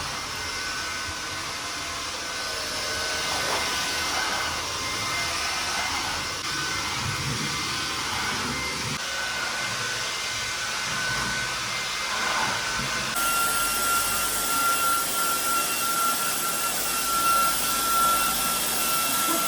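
Cordless wet floor washer (wet-dry vacuum) running as it washes the floor: steady suction and motor noise with a thin whine that steps slightly lower in pitch about two-thirds of the way through.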